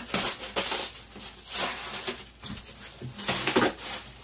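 Plastic bag crinkling and rustling in irregular bursts as a resin 3D printer's red plastic cover is handled and pulled out of it, loudest a little after three seconds in.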